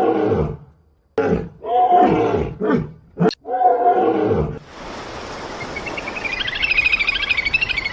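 A big cat growling and roaring in about six rough, pitched calls, followed after about four and a half seconds by a steady hiss with a fast, high chirring trill that swells near the end.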